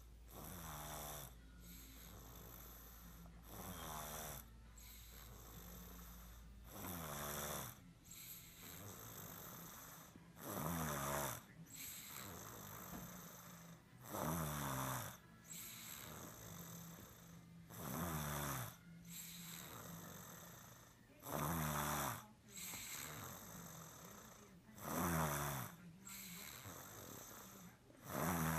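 Snoring: a strong snore about every three and a half seconds, each lasting about a second, with a quieter breath in between.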